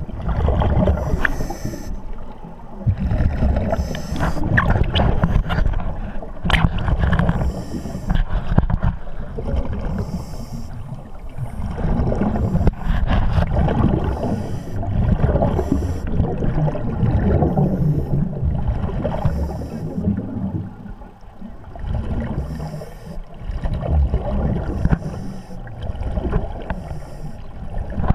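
Diver's exhaled air bubbling out of a surface-supplied full-face mask, heard underwater: a low gurgling rumble that swells in bursts with each breath, about every two to three seconds.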